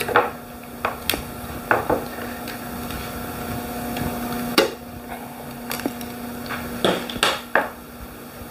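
Sharp metallic clicks and taps as a tool pries the lid off a small metal paint can, about ten in all, the loudest near the middle. A steady low hum runs underneath.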